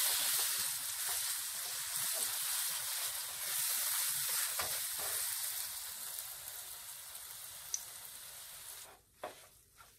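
Wet bottle-gourd and gram-flour batter sizzling in hot oil in a nonstick frying pan as it is stirred with a spatula. The sizzle fades over the last few seconds and drops away about nine seconds in, followed by a couple of soft knocks.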